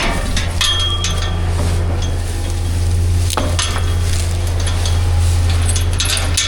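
Metal farm gate and chain hardware clanking and clinking as the gate is worked, with a few sharp knocks, over a steady low hum.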